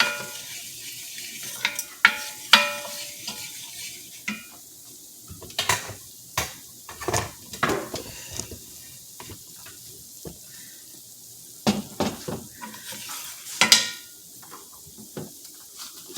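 Spices frying in hot olive oil in a pot, sizzling steadily, while a utensil stirs them, scraping and clinking against the pot again and again.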